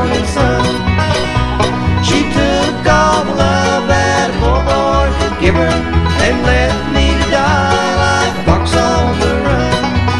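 Bluegrass instrumental music: banjo and guitar picking over a steady bass beat.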